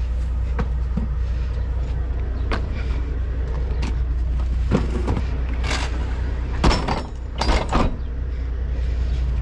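A steady low hum of an idling vehicle engine, with scattered knocks and clunks on top; the loudest clunks come in a cluster about two-thirds of the way in.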